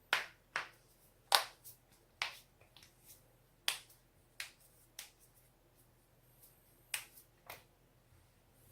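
Human joints cracking: about a dozen sharp, dry pops at uneven intervals, some close together in pairs. There is a short pause before a last group of three.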